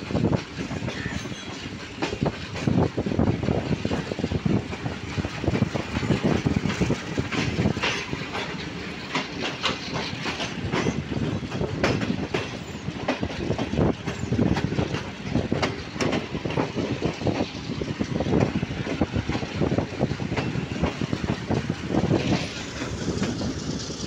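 Passenger train coaches rolling out of a station, wheels clattering over the rail joints in a continuous run of irregular clicks and rumble, heard from the open doorway of a moving coach.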